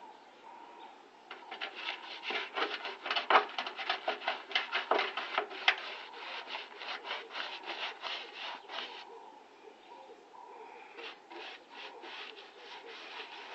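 Hand sanding on vehicle bodywork: rapid back-and-forth rubbing strokes, several a second. A long run of strokes stops about nine seconds in, and a fainter run starts again about two seconds later.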